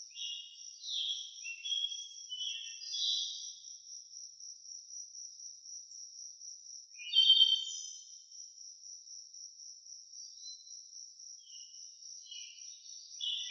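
Songbirds singing short chirping phrases over a steady, high, pulsing insect trill; the loudest bird phrase comes about seven seconds in.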